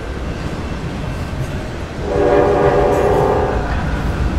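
A train horn sounds once, about two seconds in, for about a second and a half, over a steady low rumble.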